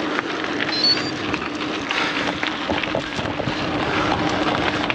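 Wind rushing over the microphone and tyre noise from a gravel bike on the move, with a steady low hum underneath and scattered small clicks.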